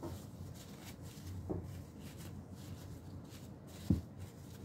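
Tissue paper rustling and crinkling as it is pulled apart and unwrapped by hand, with a dull thump about four seconds in.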